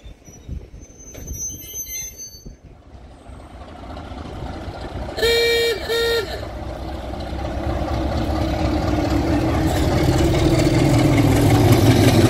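A BR Class 33 diesel locomotive sounds two short horn blasts, the first longer than the second, about five seconds in. Its Sulzer eight-cylinder diesel engine then grows steadily louder as it approaches.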